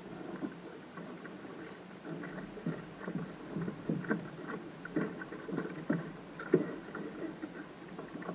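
Small waves slapping against the hull of a single-handed sailing dinghy under way, with irregular splashes and knocks about one or two a second over a low rush of water.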